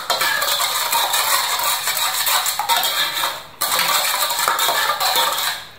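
Metal ladle stirring liquid dressing in a stainless steel pot, scraping and clinking against the sides, with a brief pause a little past halfway.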